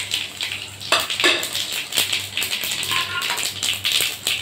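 Fennel and nigella seeds crackling and sizzling in hot mustard oil in a metal kadai, a dense run of small pops over a steady hiss. Near the end a metal spatula scrapes through the oil against the pan.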